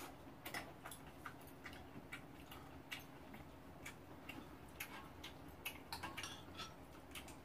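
Quiet eating sounds: chewing and soft, irregular clicks of chopsticks and a spoon on a pan and bowls, several a second.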